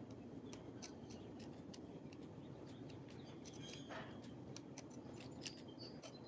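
Faint, scattered clicks and scratches of a thin steel pick scraping across the serrated jaw teeth of Engineer PZ-58 screw-removal pliers, with a slightly longer scrape about four seconds in.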